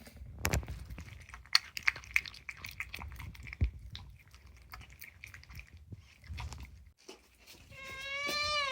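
A cat chewing food, with many small irregular crunches. About a second before the end it breaks into a long meow that rises slightly and then falls.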